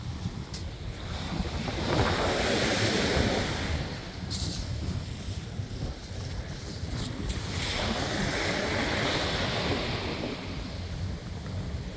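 Ocean surf washing on the beach, swelling twice, with wind buffeting the microphone as a low rumble underneath.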